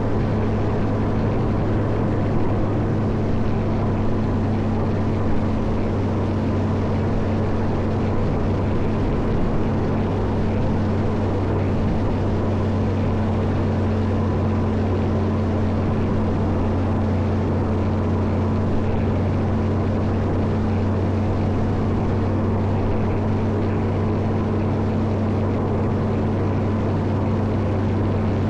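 Caterpillar 140M motor grader's diesel engine running, a steady low drone that holds the same pitch throughout.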